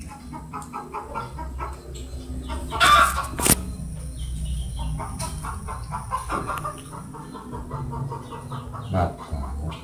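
Rapid runs of short clucking calls, several notes a second, with a sudden loud rustle about three seconds in followed by a sharp knock.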